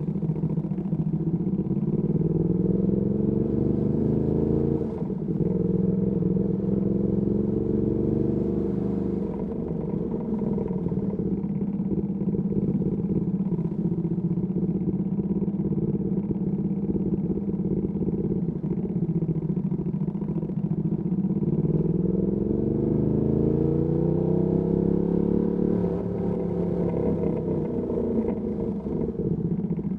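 Ducati Panigale V2S V-twin engine through a Termignoni exhaust, ridden in city traffic. The engine note rises in pitch in several short pulls, easing off between them, with steadier cruising in the middle.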